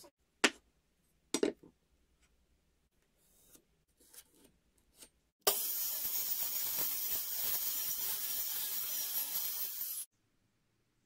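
A couple of sharp knocks from blocks being handled, then a mitre saw runs and cuts through a wooden block: an even, loud noise that starts and stops abruptly, lasting about four and a half seconds.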